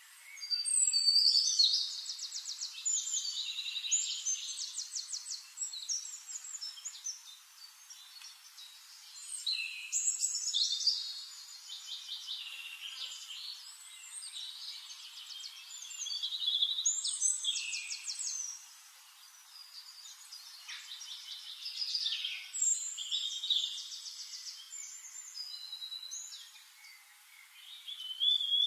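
Songbird singing: phrases of fast trills and chirps, each a few seconds long, repeated with short pauses between.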